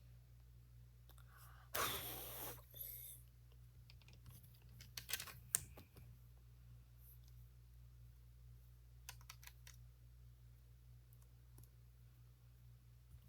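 Lego bricks being handled and pressed together: scattered faint clicks, with a short rustling clatter about two seconds in and a few sharper clicks around five seconds, over a low steady hum.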